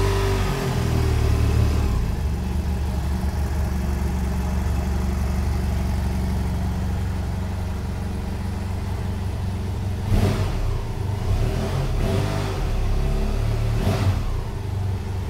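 BMW F800GS Adventure's 798 cc parallel-twin engine idling steadily through its exhaust, with short throttle blips about ten seconds in and again about four seconds later.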